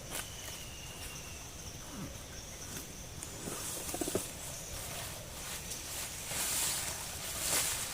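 Forest ambience: a steady high insect trill, with scattered rustles and knocks and a brief low-pitched sound about four seconds in.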